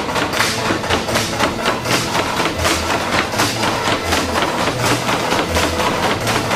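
Bamboo poles of the tinikling dance knocking in a steady rhythm, tapped on the wooden stage floor and clapped together, several sharp clacks a second.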